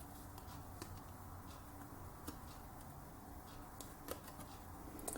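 Faint scattered clicks and light handling noise as the plastic clamshell holding the processor is opened.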